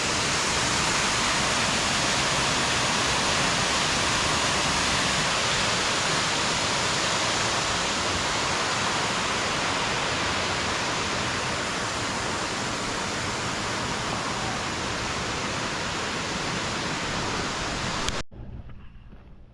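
Waterfall rushing in a steady, loud wash that stops abruptly near the end, leaving a much quieter background.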